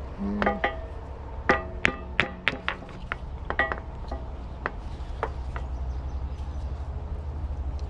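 Steel hammer tapping on an excavator bucket's pin and linkage, about a dozen ringing metallic strikes, thickest in the first four seconds and then sparser. The taps are knocking the pin through a freshly fitted rubber gasket and washer to bring the parts into line. A steady low hum runs underneath.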